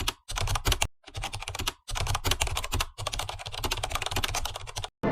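Rapid typing on a keyboard: fast runs of key clicks, broken by brief pauses about four times.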